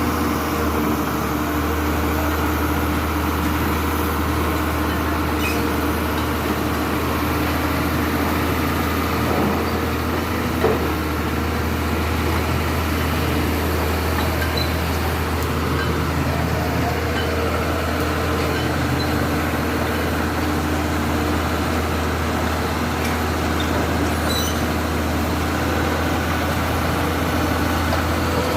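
Komatsu excavator's diesel engine running steadily at an even speed, with one brief knock about ten seconds in.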